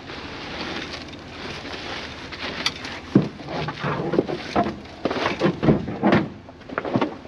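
Loose bulk material shifting and crunching. About three seconds in, a run of irregular knocks and scrapes begins.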